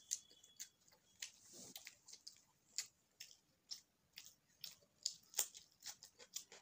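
Faint, close-miked chewing of a mouthful of bhatura and chole: irregular soft wet mouth clicks and smacks, a few each second.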